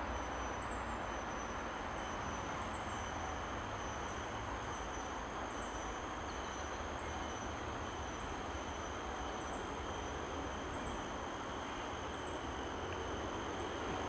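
Steady, even outdoor background rush with a low rumble. Faint, short, high chirps repeat about once a second above it.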